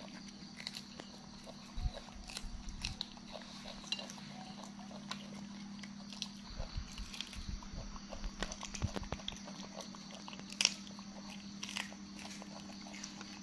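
Two macaque monkeys chewing and biting raw green beans: scattered small crunches and snaps of the pods, with a few dull handling thumps. A steady low hum runs underneath.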